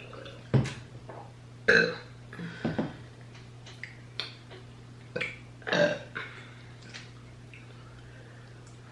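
A person burping on purpose, several short, loud burps a second or so apart, with a gap in the middle before two more near the six-second mark.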